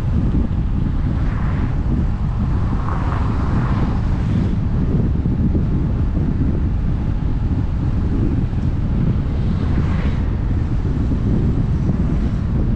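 Wind buffeting the microphone over the low road rumble of a moving vehicle, steady and loud, with a few brief fainter swells in the higher sound.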